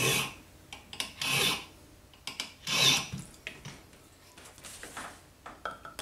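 A fine round file rasping on a key held in a vise: a few short, light strokes about a second and a half apart, the later ones fainter, taking the impression marks at pins 2, 3 and 4 down just lightly.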